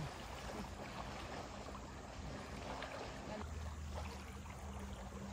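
Lake water lapping and splashing softly at the shore as people wade in, with a faint low steady hum that starts about halfway through.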